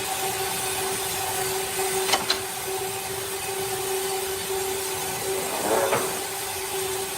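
Sawmill machinery running steadily with a constant motor hum over a hiss. There are two sharp clicks about two seconds in and a brief louder rasp near the end.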